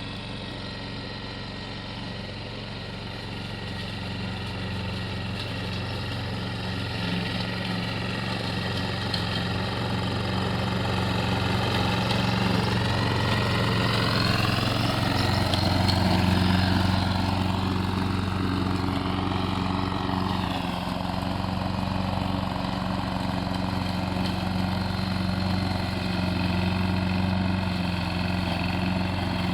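Small lawn mower engine running steadily on a remote-controlled mower. It gets gradually louder, and its pitch rises and then falls back around the middle before it settles.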